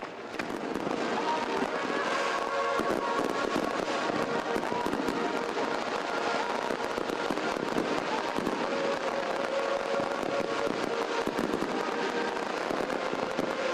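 Fireworks display: a dense, unbroken stream of bangs and crackling from bursting shells, with music playing underneath.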